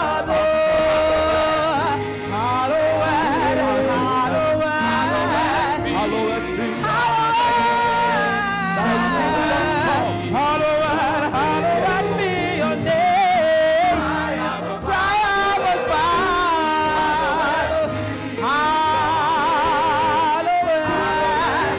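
Church choir and soloists singing a worship chorus in held, wavering notes, backed by a live band with brass.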